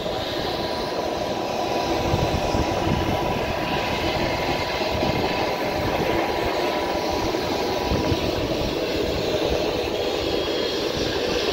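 Steady turbine noise from a parked business jet, an even rush with a thin constant whine, over an irregular low rumble.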